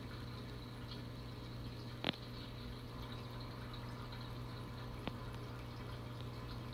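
Steady running of a reef aquarium's water circulation, a low pump hum under the trickle of moving water, with two sharp clicks, about two seconds and five seconds in.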